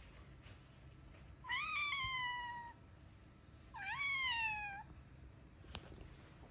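Long-haired black-and-white cat meowing twice, each meow about a second long, rising and then trailing down in pitch.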